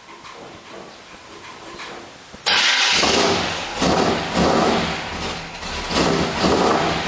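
V8 engine starting abruptly about two and a half seconds in, then running loud with a series of short throttle blips.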